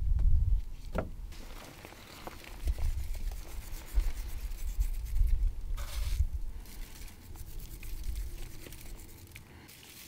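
Hands setting tomato pieces into a baking tray of sliced vegetables and sprinkling spices over them: a few soft clicks and a brief rustle over a low, uneven rumble.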